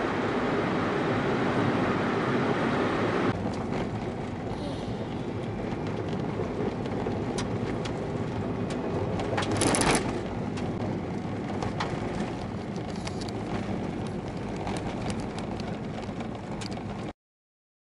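Car driving, heard from inside the cabin: steady road and engine noise on a sealed road, then, from about three seconds in, travelling on a gravel track with many sharp ticks and crackles from the loose surface and a louder rattle near ten seconds in. The sound cuts off suddenly near the end.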